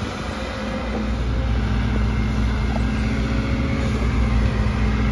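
Bull backhoe loader's diesel engine running steadily with a low, even hum while the backhoe arm works.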